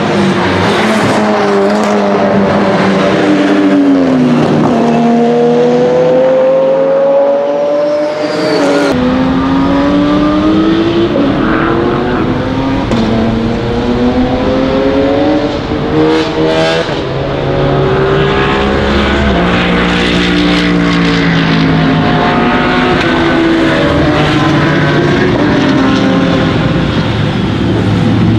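Pagani Zonda GR's 6-litre Mercedes-Benz AMG V12 race engine at speed. Its pitch climbs through the gears and drops sharply at each upshift, rising and falling repeatedly as the car accelerates and slows for corners.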